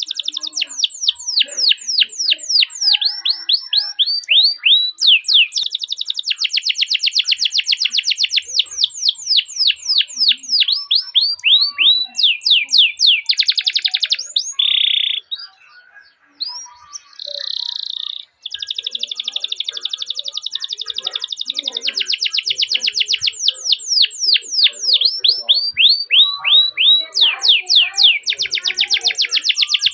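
Domestic canary singing long rolled trills: runs of rapidly repeated, downward-sweeping whistled notes, some fast and tightly packed, others slower. About halfway through the song breaks briefly around a short buzzy note, then the rolls resume.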